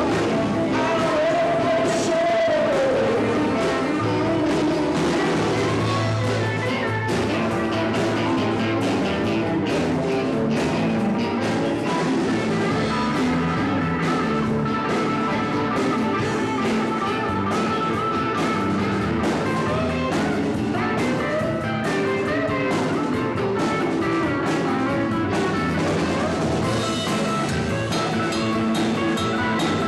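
A rock band playing live: drum kit, acoustic guitar and electric bass guitar with a sung vocal, and steady drum and cymbal strokes.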